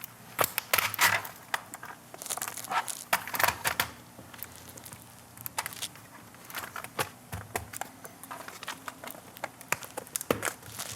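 Irregular clicks, taps and knocks of a laptop's plastic palm rest and lid being handled, flipped down and settled onto its hinges.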